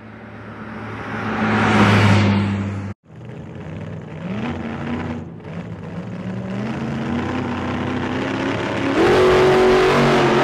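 Car engine sounds cut together: first an engine swells up loudly and falls away, like a car passing; after a sudden cut an engine accelerates with its pitch climbing in steps; then another cut near the end to a louder, steady engine note.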